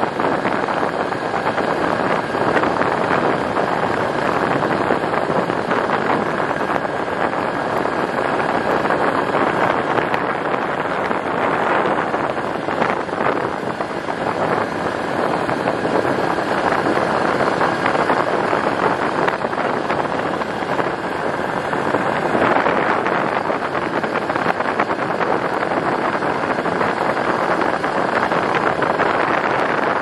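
Steady noise of a vehicle driving along a gravel road, its tyres on the gravel mixed with the engine, and wind buffeting the microphone.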